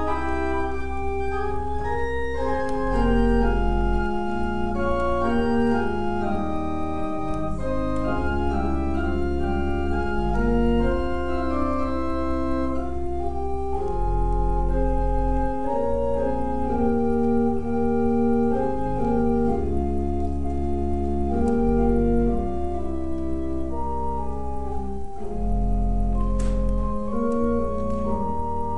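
Church organ playing slow, held chords over a deep bass line, the chords changing every second or two.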